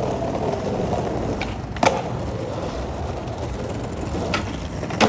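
Skateboard wheels rolling steadily over pavement, with three sharp clacks along the way.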